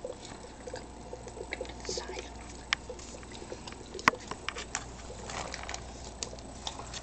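HHO (hydrogen-oxygen) gas bubbling from a tube into an upturned water-filled bottle in a bucket, making irregular small pops and ticks, with a sharper click about four seconds in. The gas is filling the bottle by pushing the water out, which measures the generator's output.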